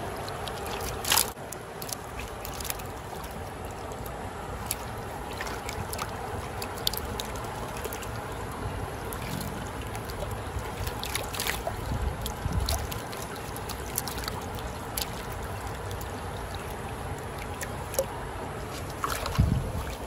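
Creek water rushing steadily over a shallow rapid, with scattered short splashes and clicks from live fish flapping in a hoop net held in the water; the loudest splash comes about a second in.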